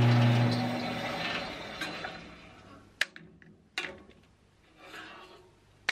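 Bandsaw motor and blade winding down after being switched off, the steady hum fading away over about two to three seconds. Then a few sharp clacks as the bar clamps are released from the cut stock.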